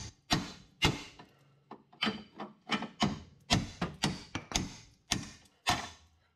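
Hammer blows on a steel pickle fork (ball-joint separator) driven between the lower control arm and steering knuckle to pop the lower ball joint apart. About a dozen sharp metallic strikes, roughly two a second, each with a short ring.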